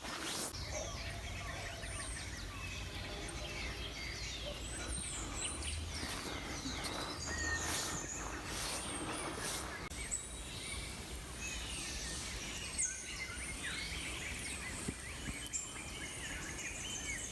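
Several forest birds singing and calling, with many short chirps and whistled glides overlapping throughout, over a steady low rumble.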